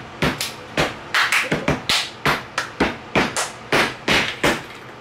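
Hands clapping: about sixteen sharp claps in an uneven rhythm, some coming in quick pairs.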